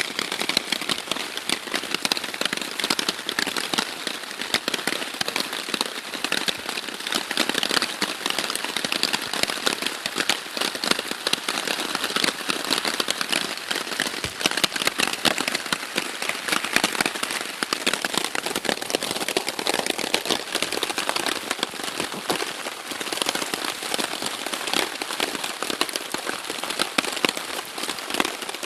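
Steady rain falling on a hammock tarp overhead: a dense, unbroken crackle of countless small drop impacts.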